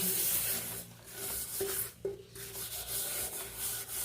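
Dishes being scrubbed by hand with a sponge at a kitchen sink: rubbing strokes with two brief pauses, about one and two seconds in.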